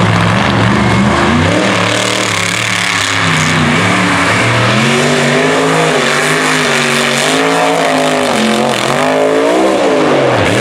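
Mega truck's big race engine running hard on a dirt track, its pitch repeatedly rising and falling as the throttle is worked through the turns, over a steady hiss of tyres and flung dirt. Near the end the engine note drops sharply and climbs again as the truck goes airborne over a jump.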